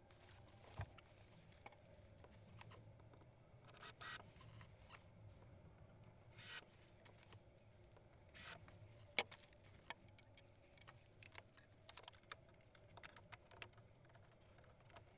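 Faint hand-work noises of a screw being driven with a Phillips screwdriver and a bat-shaped LED mirror light being fitted onto a wall: rubbing and scattered clicks, three short scrapes about two seconds apart, and one sharp click a little under ten seconds in.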